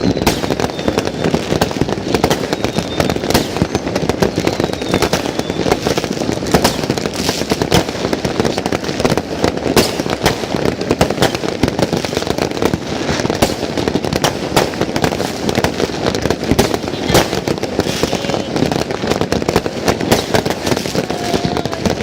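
New Year fireworks going off continuously: a dense, unbroken barrage of overlapping bangs and crackles.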